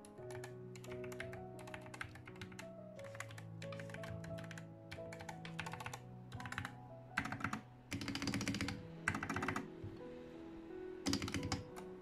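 Typing on a Gamakay MK61 mechanical keyboard with Gateron optical yellow linear switches: bursts of keystroke clicks, with quick runs of presses after about seven seconds and again near the end.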